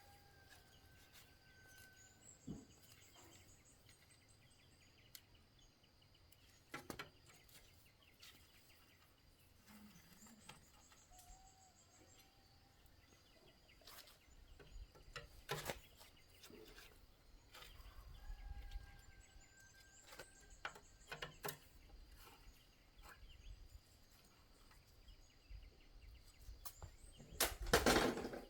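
Quiet outdoor background with faint bird chirps and trills. Scattered small clicks and knocks run through it, and a short, louder clatter comes near the end.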